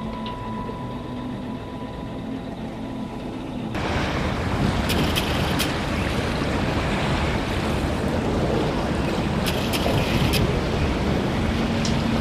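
Steady rushing wind and water noise with a ferry's engine running under it, cutting in suddenly about four seconds in after a quieter stretch.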